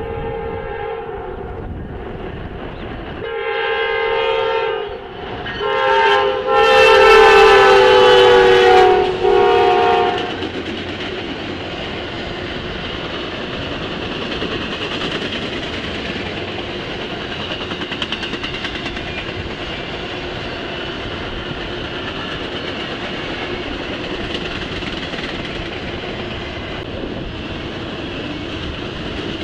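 Freight locomotive air horn sounding several blasts, the later ones loudest and dipping slightly in pitch as it passes. After about ten seconds an intermodal double-stack freight train rolls by with steady wheel rumble and faint rhythmic clatter over the rail joints.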